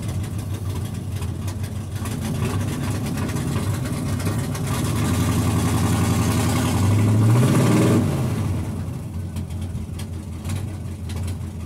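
Truck engine running, revved up from about halfway through and dropping back toward idle about two-thirds in. This is the rev that brings its Delco 10SI alternator into charge with no sense or field wire connected.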